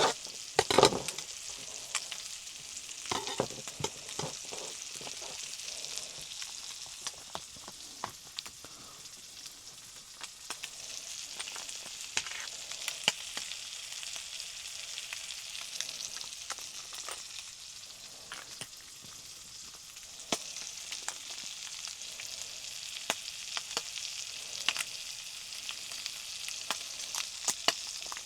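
Food sizzling in a frying pan: a steady high sizzle dotted with many small pops, and occasional knocks of a utensil stirring in the pan.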